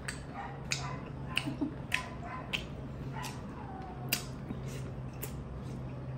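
Close-up mouth sounds of someone eating fish eyes: irregular sharp, wet smacks and clicks of chewing and sucking, one or two a second, over a steady low hum.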